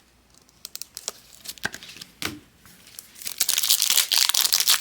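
Cards being handled with light taps and clicks, then about three seconds in a foil trading-card pack wrapper being torn open and crinkled, loud and continuous.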